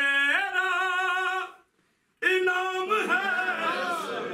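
A man's solo voice singing long, wavering held notes in the chanted style of a Shia majlis recitation. It breaks off briefly just before the middle, then a second held note gives way to a busier stretch of voice.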